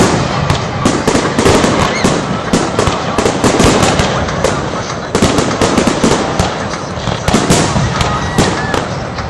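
Fireworks display: a dense barrage of shells bursting, with rapid bangs several times a second and crackling.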